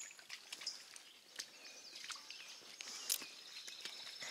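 Footsteps on a wooded hiking trail, an irregular run of soft steps and scuffs, with birds chirping in the second half.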